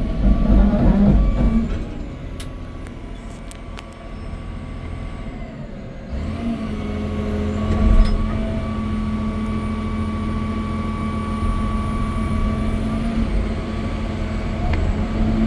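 John Deere 350D LC excavator's 9.0-litre six-cylinder turbo diesel running with the hydraulics driving the tracks in two-speed travel. The engine eases off for a few seconds, then comes back up about six seconds in with a steady whine that holds to the end.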